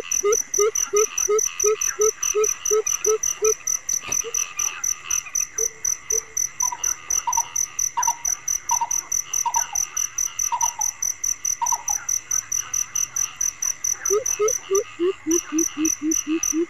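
Night chorus of frogs and crickets over flooded rice fields: frogs give rapid series of short rising notes, about three a second, near the start and again near the end, with sparser higher calls in between. Crickets chirp in a fast, even pulse throughout.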